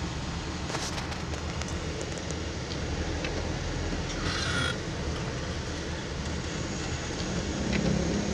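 Steady engine and road rumble heard from inside a vehicle's cabin while driving on a wet road, with a short hiss about four seconds in.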